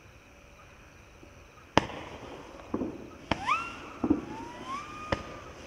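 A 500-gram fireworks cake starting to fire: after a near-quiet start, four sharp launch thumps come from about two seconds in, roughly one a second. After them come rising whines that climb in pitch and level off.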